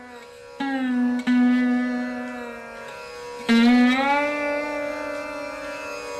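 Background music on a sitar-like plucked string instrument: a few slow plucked notes over a held drone, the third note bent upward in a slide.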